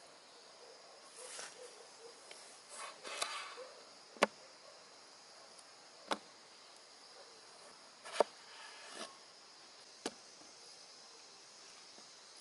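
A cleaver chopping potatoes on a wooden cutting board: four sharp knocks about two seconds apart, with softer handling rustles before the first. Insects buzz steadily underneath.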